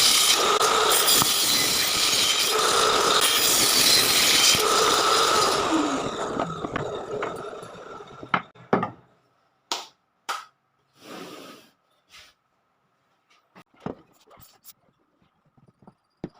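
An electric power tool working wood, its noise swelling and easing every couple of seconds, then winding down about six seconds in. A scattering of sharp knocks and taps from wood being handled follows.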